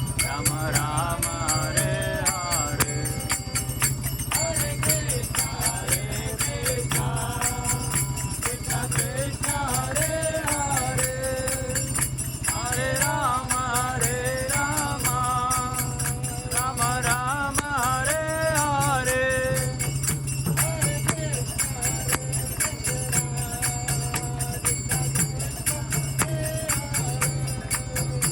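Devotional kirtan music: a voice singing a chant-like melody over rapidly jingling hand cymbals and a steady low drone.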